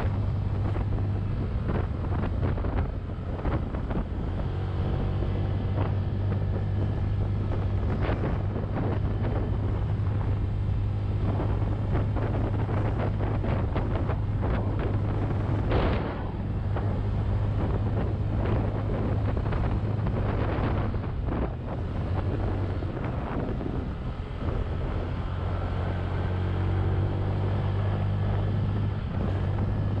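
Honda Click 125i scooter's single-cylinder engine droning steadily under load on a steep climb with a passenger aboard, easing briefly a little after the two-thirds mark. Heavy wind noise buffets the microphone throughout.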